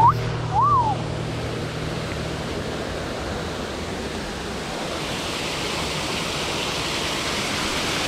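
Small waterfall and stream rushing over rocks, a steady rush that grows louder and brighter toward the end. Two short whistled chirps sound in the first second.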